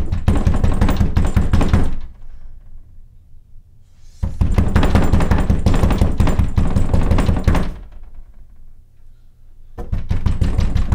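Rapid pounding on a door, in three bouts of about two to three seconds each, with short pauses between.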